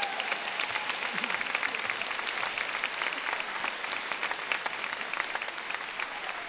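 A large audience applauding steadily, the clapping easing off slightly near the end.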